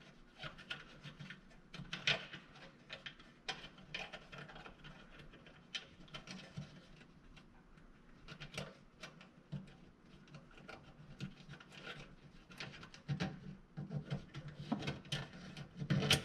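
Hands working at a Bennett trim tab actuator's lower mount and the tab plate: irregular light clicks and taps of small parts being handled.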